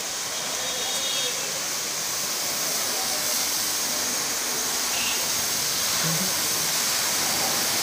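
Steady hiss of a water jet spraying onto a car, as at a car-washing bay of a vehicle service garage.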